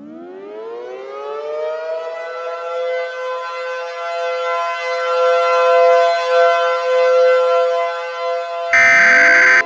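Civil defense siren winding up from silence: its pitch rises over about two seconds, then holds a steady wail that slowly grows louder. Near the end a loud burst of about a second of EAS header data tones, the screech that opens an emergency alert, cuts in over it.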